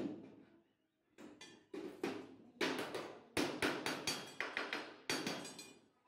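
Thin steel sheet for a washing-machine drum being curled by hand into a cylinder, knocking and flexing in a string of sharp metallic knocks, each with a short ring. One knock comes right at the start, then they follow close together from about a second in.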